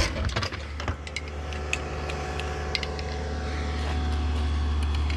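The engine of the digging machine excavating the septic tank hole runs steadily, growing louder toward the end. A few light clicks and taps come in the first three seconds.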